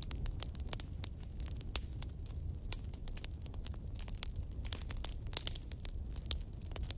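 Fire burning: a steady low roar with many sharp, irregular crackles and pops.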